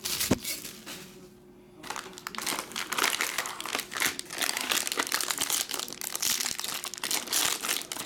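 Foil wrapper of a sealed baseball-card pack crinkling and tearing as it is handled and ripped open, continuous from about two seconds in. A single sharp tap comes just before, near the start.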